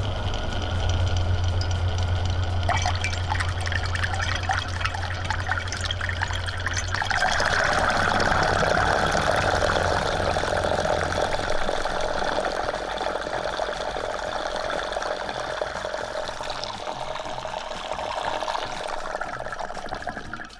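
HEIDON Three-One Motor benchtop stirrer spinning a propeller impeller in a glass beaker of water, the water churning and sloshing in a deep vortex. The churning gets louder about seven seconds in, over a low steady motor hum that fades out around the middle.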